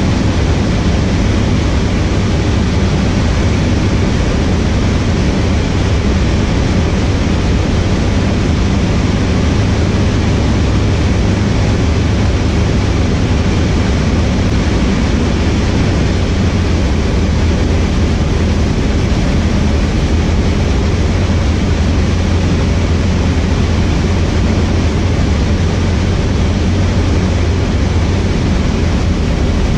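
Cessna 152's four-cylinder Lycoming engine and propeller giving a steady, even drone, mixed with airflow noise, heard inside the small cabin.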